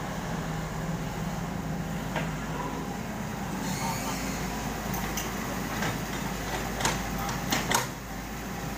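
Komatsu PC78US mini excavator's diesel engine running steadily, with several sharp knocks and clanks from digging in broken concrete in the second half.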